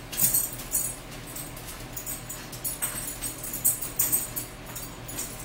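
Close-up chewing and lip-smacking: an irregular run of short, crisp, wet mouth clicks, several a second.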